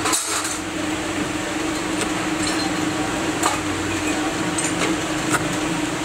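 A few light metallic clinks and clicks of hand tools, pliers and a small blade, working rubber on a bulldozer tire repair, over a steady low hum.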